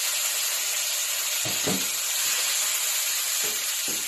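A pan of frying tomatoes, onions and spices sizzling and hissing steadily as water is poured into it, with a few faint knocks along the way.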